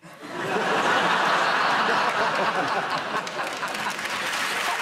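Studio audience laughing and applauding, swelling up quickly in the first half-second and then holding steady.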